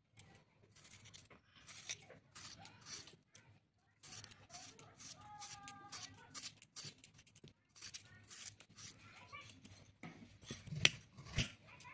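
Serrated kitchen knife scraping and cutting a cucumber: a run of short rasping strokes as the skin is peeled, with a sharper click about a second before the end.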